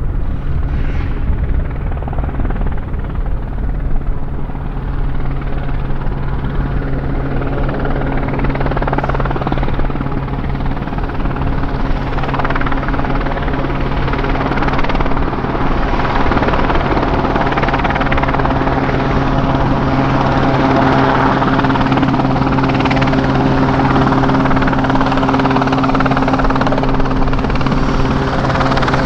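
Westland Sea King helicopter flying in close, its rotors and twin Rolls-Royce Gnome turboshaft engines running with a steady hum and rushing noise that grows louder as it nears.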